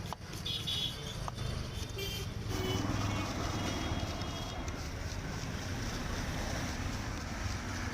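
Busy street traffic noise, a steady rumble with brief high horn toots now and then.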